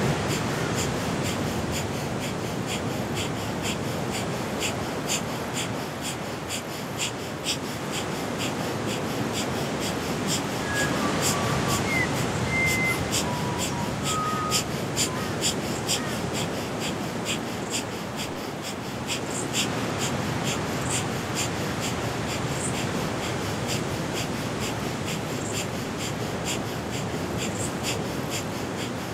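Breath of fire: rapid, rhythmic, forceful nasal exhales at about two a second, kept up without a break. A bird whistles a few short notes near the middle.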